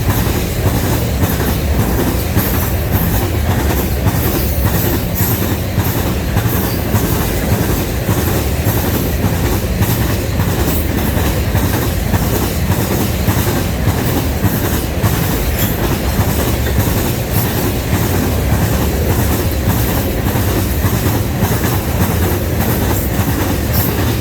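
Loaded freight cars of a sand train rolling past at speed, steel wheels clicking in a regular rhythm over the rail joints above a steady, heavy rumble.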